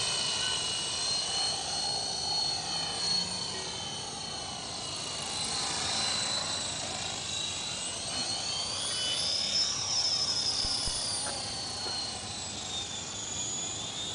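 Align T-Rex 450 electric RC helicopter in flight: a steady high whine from its motor and gears over the rotor hum, running at a low head speed on a fixed-pitch setup. The whine rises in pitch around the middle and falls back near the end.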